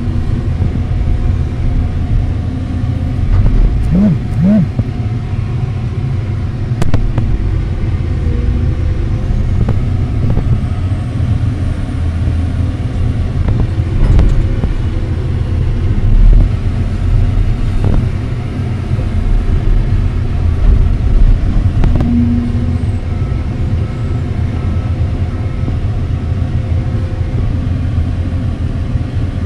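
Hydraulic excavator's diesel engine running steadily under working load, heard from inside the cab as the bucket digs soil, with a few short knocks along the way.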